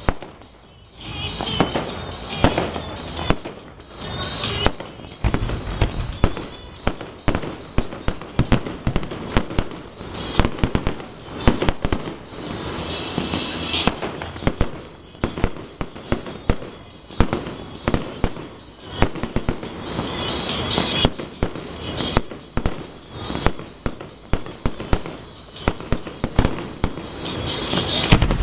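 Fireworks display: a rapid run of aerial shell bursts and bangs, several a second, with crackling between them and a longer hissing stretch about halfway through.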